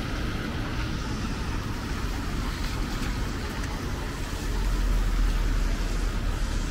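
Road traffic on a wet city street: a steady rush of tyres and engines, with the low rumble swelling louder about four and a half seconds in.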